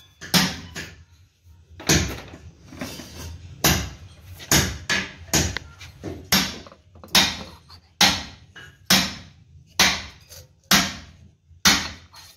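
Hammer blows, about a dozen in a steady rhythm of roughly one a second, each a sharp strike with a short ringing tail.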